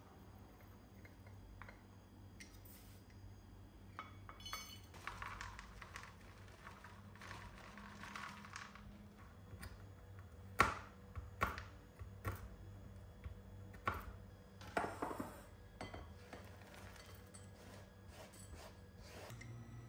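Dishes, cutlery and glassware being handled: scattered clinks and knocks, with several sharper clinks in the second half and a softer noisy stretch about five seconds in.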